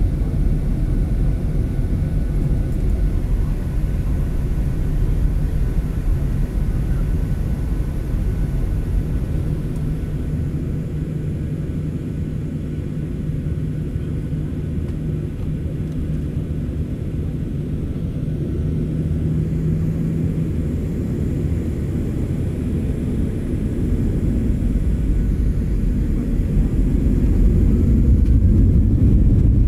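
Steady low rumble of a Boeing 737-800's CFM56 jet engines heard inside the passenger cabin, growing a little louder near the end.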